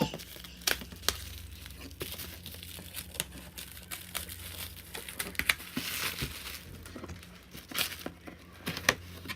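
Packaging crinkling and rustling, with scattered light knocks and clicks, as a boxed cookware set is unwrapped and handled.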